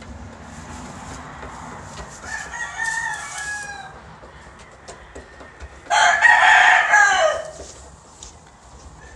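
Roosters crowing: a fainter crow about two seconds in, then a loud, close crow about six seconds in that lasts about a second and a half and drops in pitch at the end.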